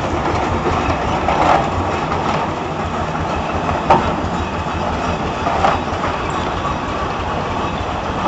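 Richard Garrett & Sons 1922 steam roller moving off along the road: a steady rumble with a few sharp clanks.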